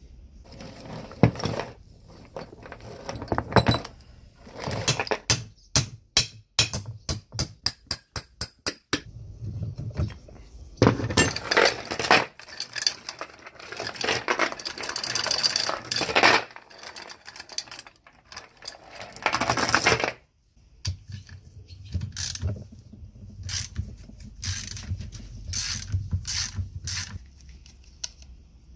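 Rusty steel load chain of a chain hoist being pulled through its chain wheel: a run of sharp metallic clicks that speeds up, then long spells of chain rattling, with scattered clinks of the metal parts near the end.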